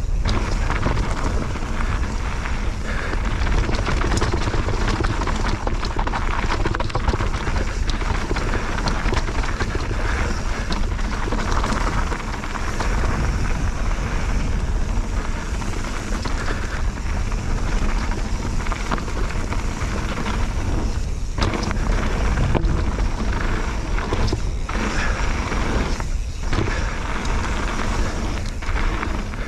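Mountain bike (Bird Aeris 145) riding fast down a rough trail: wind buffeting the camera microphone over continuous tyre noise, with frequent clattering and rattling of the bike over the rough ground.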